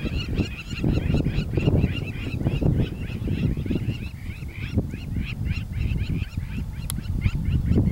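A pack of African wild dogs twittering: rapid, high-pitched, bird-like chirping calls, about five a second, thinning out and fading after about five seconds, over a low rumble of wind on the microphone.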